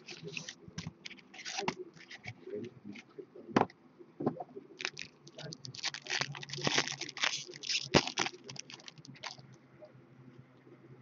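Hands tearing open and unwrapping the wrapper of a hockey card mini box, a run of quick crinkles and rustles, with two sharp clicks about three and a half and eight seconds in. The crinkling is busiest in the middle and settles into quieter card handling near the end.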